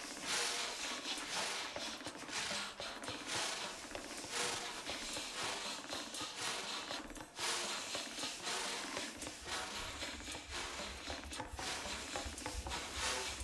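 Live contemporary ensemble music of winds, accordion, double bass and percussion: a dense texture of many short, hissing, noisy sounds over a mid-range pitched drone, with low bass notes coming in about nine seconds in.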